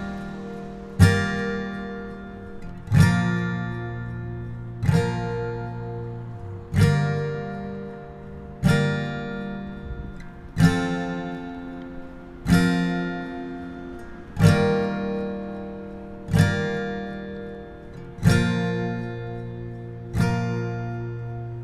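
Background music: an acoustic guitar strumming slow chords, one about every two seconds, each left to ring out.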